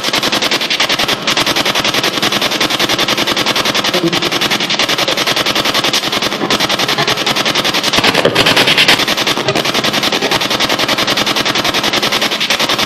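P-SB7 spirit box sweeping through radio frequencies: a loud, rapid, choppy stutter of radio static with broken snatches of broadcast sound. It is left running between questions so that its noise can be heard as replies.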